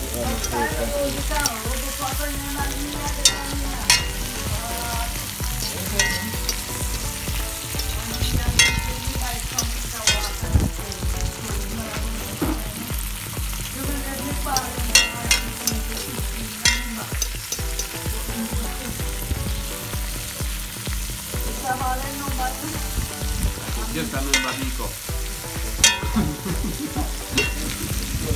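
Vegetables sizzling as they sauté in margarine in a metal pot, with a fork stirring them and now and then clicking against the pot.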